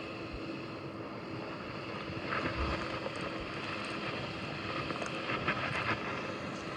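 Jeep Wrangler Rubicon X driving slowly along a rough dirt trail: steady running noise with a faint hum, and short spells of clatter about two seconds in and again near five seconds.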